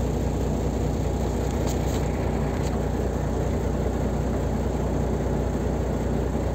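Freightliner semi truck's diesel engine running steadily, heard inside the cab as an even low drone with road noise.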